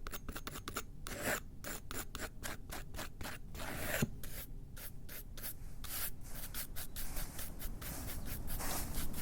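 A rapid, irregular series of short scraping, rubbing strokes, several a second, with a louder stroke near the middle.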